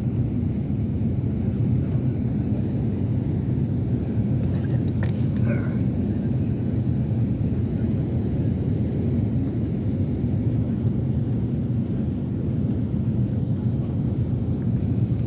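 Steady low rumble of jet airliner noise, even in level throughout, with a faint brief sound about five seconds in.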